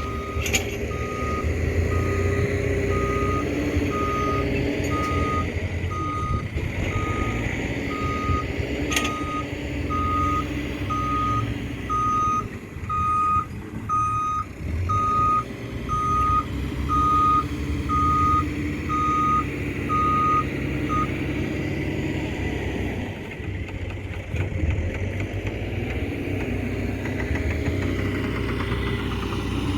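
Backhoe's reversing alarm beeping in a steady, evenly spaced series, about once a second, then stopping about two-thirds of the way through, over the diesel engine running. Two sharp clicks cut in, one near the start and one about a third of the way in.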